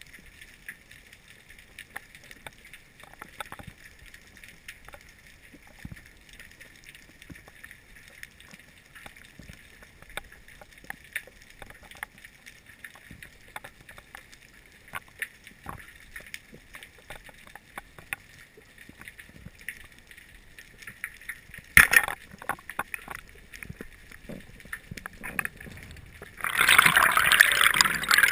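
Underwater ambience heard through a GoPro's housing during a freediving breath-hold: a steady hiss with scattered faint clicks and crackles, and a sharp knock about 22 seconds in. Over the last couple of seconds a loud rush of water sets in as the freediver swims up toward the surface.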